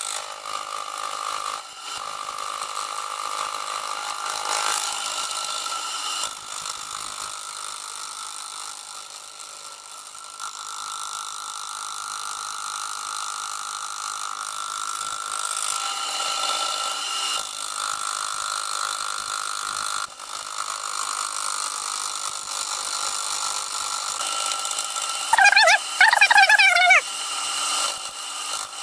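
Milling machine fly cutting a solid cast-iron steam cylinder block, played at four times speed: a steady high-pitched mechanical whir of the spindle and cutter that eases off around ten seconds in. Near the end a brief warbling sound is the loudest thing.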